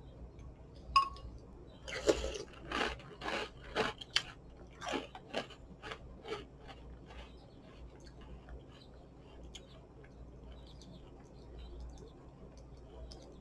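A person chewing a mouthful of apple-cinnamon ring cereal: a run of crisp crunches for about four seconds starting two seconds in, then quieter chewing.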